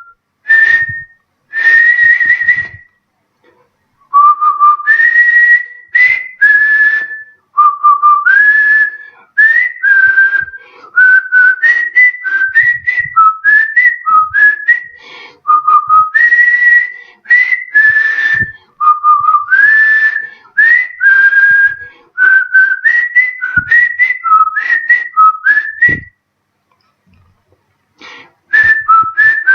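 A man whistling a melody through his lips, in phrases of gliding notes with short breaks for breath and a longer pause near the end.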